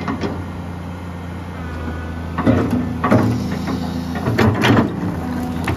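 Komatsu PC200-3 hydraulic excavator's diesel engine running steadily, with a faint hydraulic whine as the arm moves. Two louder bursts of knocking and scraping, about halfway through and again near the end, as the bucket swings down and works the ground.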